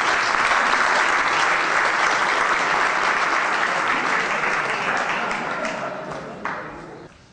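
Audience applauding, steady at first and dying away in the last couple of seconds.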